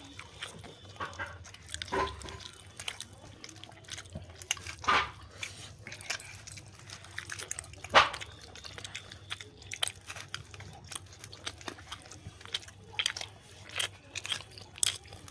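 Eating by hand from steel plates: chewing and lip smacks with scattered small clicks and taps, the sharpest about eight seconds in.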